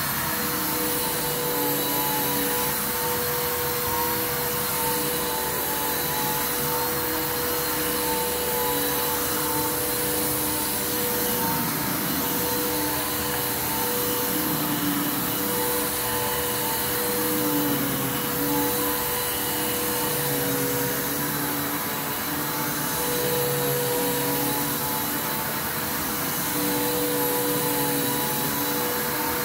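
Bissell Lift-Off Revolution Turbo upright vacuum cleaner running steadily while pushed over carpet: a constant motor whine over a dense rush of suction air.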